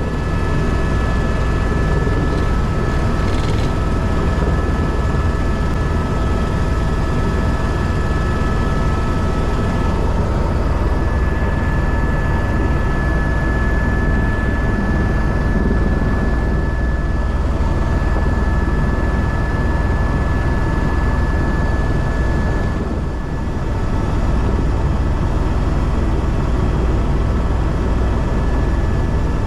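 Helicopter in flight heard from inside the cabin: a loud, steady engine and rotor drone with a steady high whine, dipping briefly about three quarters of the way through.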